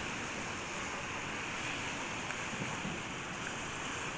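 Sea waves washing onto a beach: a steady rush of surf.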